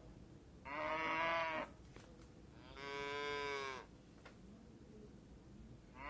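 Cow mooing: two moos of about a second each, a second apart, with a third just beginning at the end.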